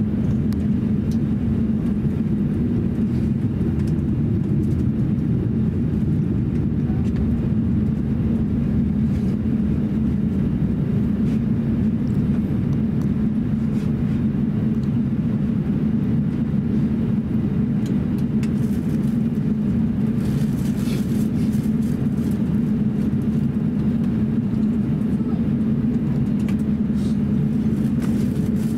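Airliner cabin noise inside an Airbus A350-900 taxiing: its Rolls-Royce Trent XWB engines at low taxi power give a steady low hum, with a strong drone band and a few faint ticks.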